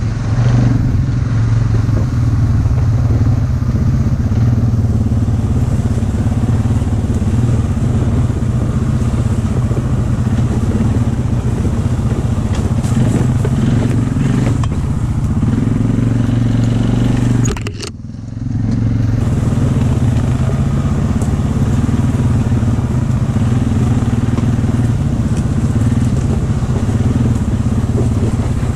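ATV engine running steadily while the quad is ridden along a bumpy trail, heard from the rider's seat. The sound briefly drops away about two-thirds of the way through, then comes back.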